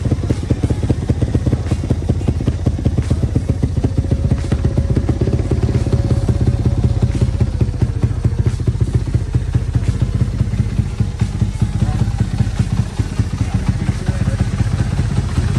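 Newly assembled motorcycle engine running steadily, loud, with a fast choppy exhaust beat.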